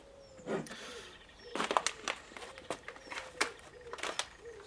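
Irregular light knocks and clicks of an airsoft rifle and its packaging being handled and set down on a plastic folding table.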